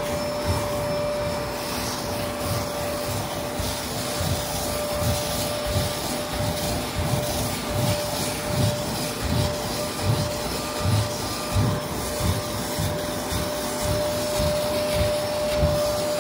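Kärcher carpet-cleaning machine running with a steady motor whine and vacuum rush as it works over the carpet. A rhythmic rubbing pulse comes a little more than once a second, the strokes of the cleaning passes.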